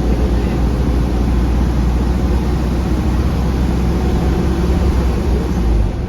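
Optare Solo M900 single-deck bus heard from inside the cabin: its diesel engine and road noise run steadily under way with a strong deep rumble. About six seconds in, the rumble changes and the level drops.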